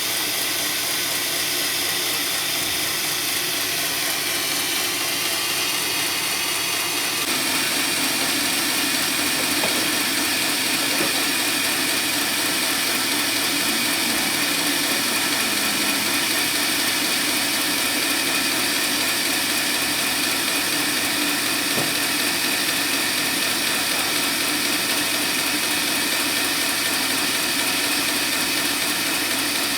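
Sawmill saw running steadily through a teak log, a continuous machine drone with sawing hiss. About seven seconds in the sound grows brighter and a little louder, then holds steady.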